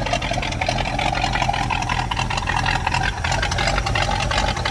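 Ford F-350 crew cab's engine idling steadily, with a fast, even ticking from a hole in the exhaust: an exhaust leak.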